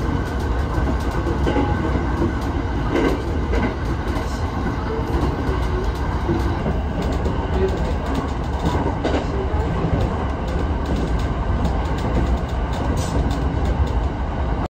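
Passenger train running on the rails: a steady rumble and rushing noise, cutting off abruptly near the end.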